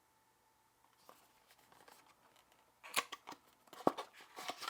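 A small cardboard product box being handled and opened: faint rustling, then several sharp clicks and scrapes in the last two seconds.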